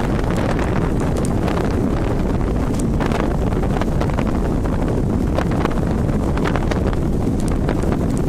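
Wind buffeting the microphone aboard a moving boat: a steady, loud rumble with scattered crackles.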